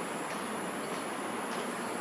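Steady outdoor background hiss, with an even, high-pitched insect drone held above it.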